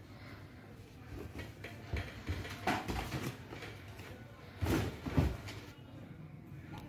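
A few dull knocks and bumps, the loudest about three seconds in and two close together around five seconds in.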